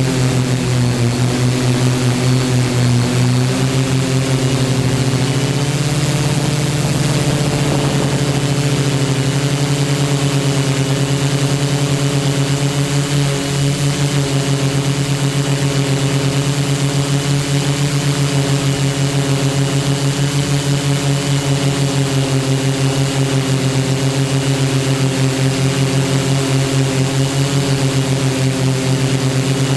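Electric quadcopter's brushless motors and propellers humming steadily as heard from its onboard camera, with a fast, even pulsing beat. The pitch shifts slightly about five seconds in, then holds steady in cruise.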